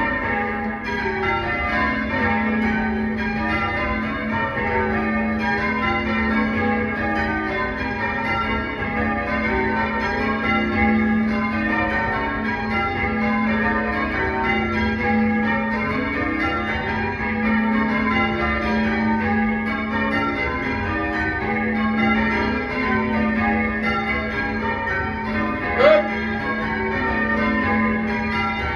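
Church bells being rung in changes (English change ringing): a continuous stream of overlapping bell strikes over a steady low hum. A short sharp sound stands out near the end.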